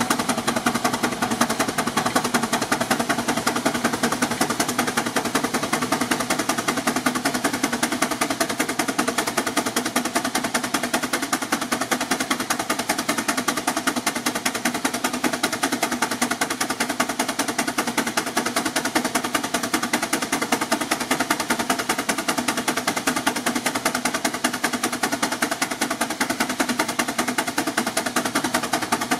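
Advance steam traction engine working hard under load on a dynamometer belt, its exhaust giving a rapid, steady chuffing from the stack.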